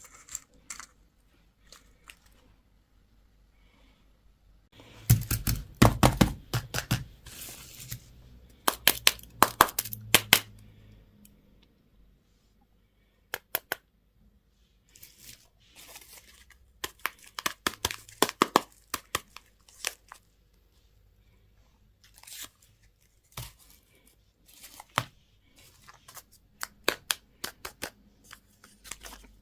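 Candy wrappers being torn open and crinkled by hand, in irregular bursts of crackling with short quiet gaps. The loudest bursts come about five to ten seconds in, with lighter crinkles later.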